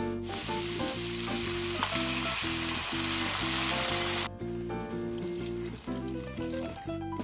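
Beef chunks and onions sizzling in a hot non-stick pan, a loud, even hiss that cuts off suddenly about four seconds in. A fainter hiss follows as water is poured into the pan.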